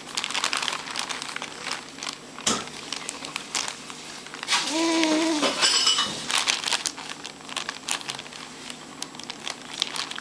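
Crinkly plastic crackling and rustling as a baby grips and squeezes it. A single knock comes about two and a half seconds in, and a short hummed voice sound a little before halfway.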